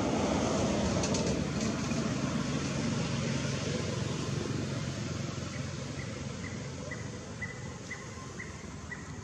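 A steady rumbling background noise that fades over the second half, with a faint high chirp repeated about twice a second near the end.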